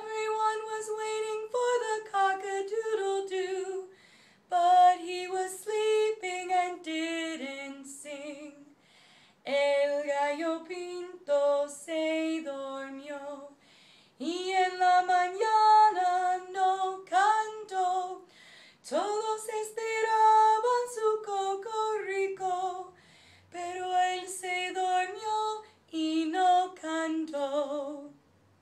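A woman singing a song about a rooster unaccompanied, in phrases of held notes with brief pauses between them.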